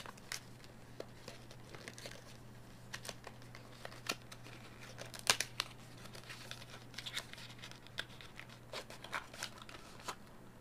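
Packaging being handled and opened: scattered rustling, crinkling and tearing with small clicks and taps, over a faint steady low hum.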